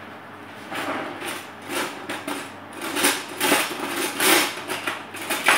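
Wire whisk beating batter in a glass bowl, the wires knocking and scraping against the glass in quick, irregular strokes that start about a second in.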